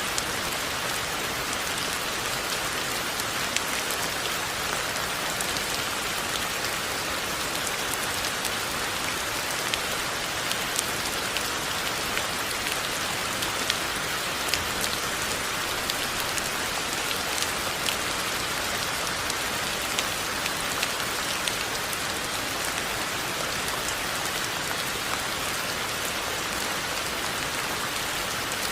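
Steady rain falling, a constant hiss with many small scattered drop ticks.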